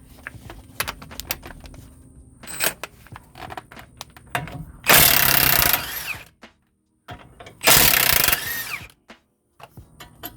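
Cordless right-angle impact wrench (Milwaukee M12) hammering in two bursts of about a second each, about halfway in and again near the end, loosening the caliper bracket bolts with an 18 mm socket. Light clicks and knocks of tool handling come before the first burst.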